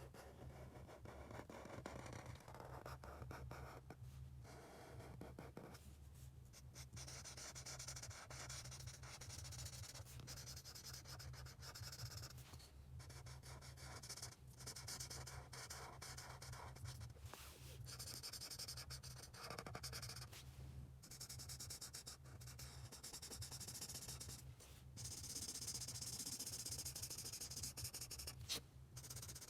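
A drawing tool scratching across paper in runs of strokes broken by short pauses, a little louder near the end, over a steady low hum.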